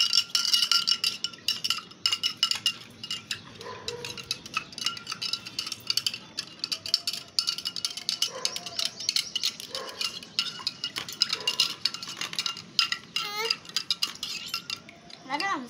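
Metal spoon stirring a drink in a drinking glass, clinking rapidly and repeatedly against the glass, which rings with steady high tones.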